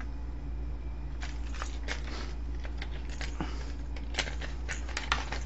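Plastic blister packaging of a crankbait lure being handled and opened: irregular crackles and clicks starting about a second in, over a steady low hum.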